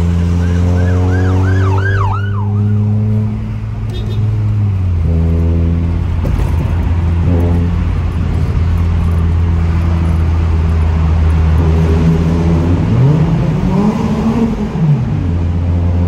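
Honda sedan's engine and aftermarket muffler under acceleration, heard from inside the cabin: a steady exhaust drone that dips around four to five seconds in, then climbs in pitch and falls back near the end. A brief siren-like warble sounds in the first couple of seconds.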